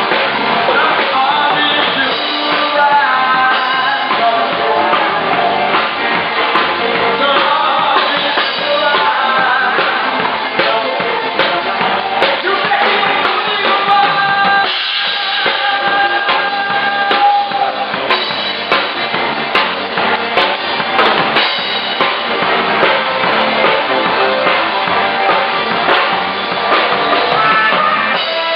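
Live band playing: drum kit with bass drum and snare keeping a steady beat under melodic instruments, recorded with a dull, narrow-bandwidth sound.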